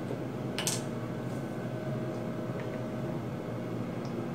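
Steady low hum of room ventilation, like an air conditioner or fan, with one light click about half a second in and a couple of fainter ticks later as small objects are handled.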